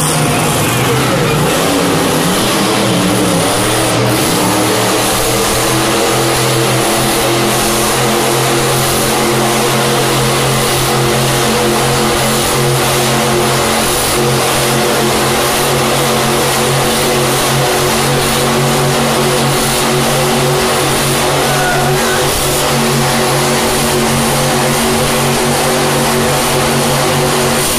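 Grave Digger monster truck's supercharged V8 held at high revs while the truck spins donuts, a loud, steady engine drone. The pitch climbs over the first few seconds and then holds.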